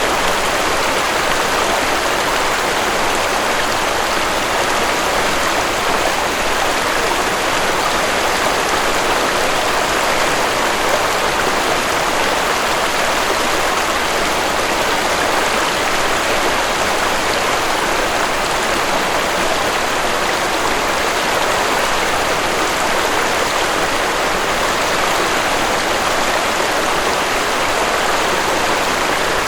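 Waterfall rushing steadily, a constant even wash of falling water.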